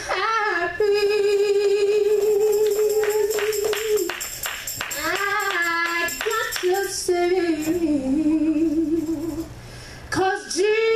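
A woman singing with long held notes, one steady for about three seconds and a later one wavering with vibrato, with a few sharp percussive hits around the middle.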